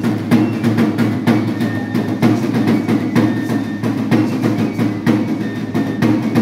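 Live music for a traditional costumed dance: a drum and other instruments keeping a steady beat of sharp strokes, about three a second.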